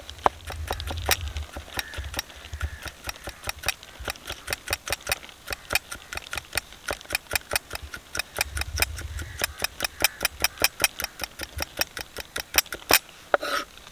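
Kitchen knife rapidly chopping dill pickle on a wooden log-slice chopping board: quick, steady knocks of the blade against the wood, about five a second.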